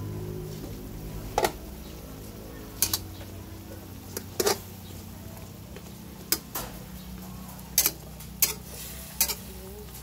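Metal spatula stirring pork hocks in a stainless steel pan, clinking sharply against the metal about every second or so, over the bubbling of the boiling adobo braise and a steady low hum.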